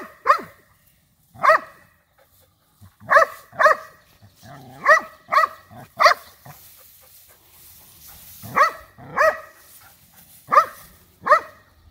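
Goldendoodle barking, about eleven short sharp barks, many in quick pairs with pauses between. She is barking at a badger she has cornered in the grass.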